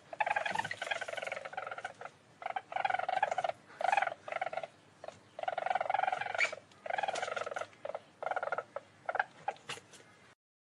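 Least weasel calling in a run of rapid, pulsed chattering bursts, some short and some close to two seconds long, separated by brief pauses.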